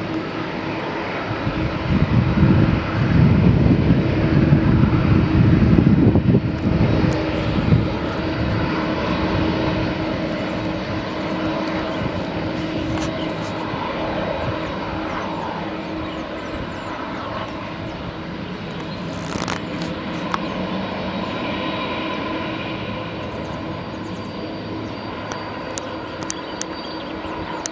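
Boeing 767's twin turbofan engines at taxi power, a steady jet whine over a low rumble. The rumble is heaviest for the first several seconds, then settles to an even whine.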